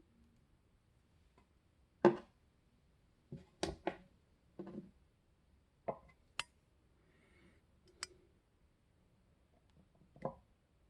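About eight scattered light clicks and taps as a small plastic garage door remote is handled on a scale and its button pressed down, the loudest about two seconds in.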